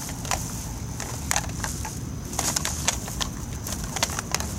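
Irregular light clicks and knocks from a plastic bag of collected scrap metal, cans and bottle caps being carried and handled, over a low background rumble.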